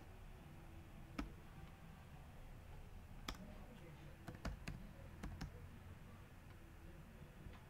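Computer keyboard keys clicking as text is typed: about seven separate key clicks, one about a second in, then a quick cluster between about three and five and a half seconds in.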